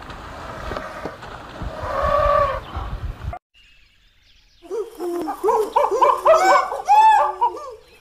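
Water splashing and churning as two elephants wrestle in a river, with one short wavering call about two seconds in. After a brief pause, white-faced capuchin monkeys break into a busy run of high chirping, squeaking calls.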